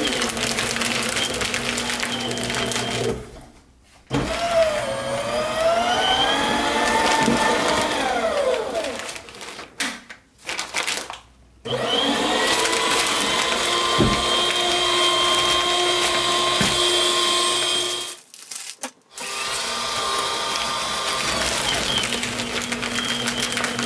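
AmazonBasics 12-sheet cross-cut paper shredder's motor running and chewing through a thick wad of newspaper flyers. Its pitch sinks for a few seconds as it works. The motor cuts out and starts again three times, each time going briefly silent.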